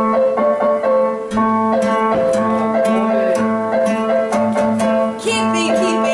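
Acoustic guitar playing a song over a steady held note, with strumming strokes coming in about a second in.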